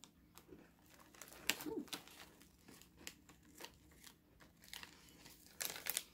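Plastic snack wrapper crinkling in irregular bursts as it is handled, loudest about one and a half seconds in and again near the end.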